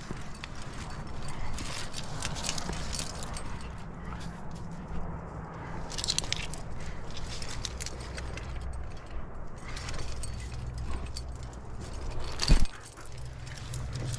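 Climbing gear on a harness clinking and rustling, with hands and shoes scraping on granite as a climber jams up a crack. A steady low rumble runs underneath, and one sharp knock near the end is the loudest sound.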